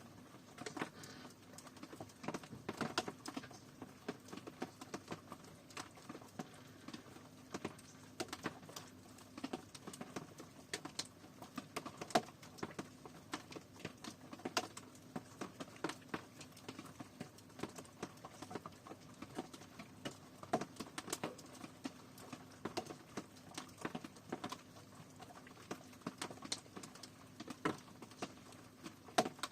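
Rain pattering, with many irregular individual drops striking a hard surface at uneven intervals over a soft steady hiss. A faint steady low hum runs underneath.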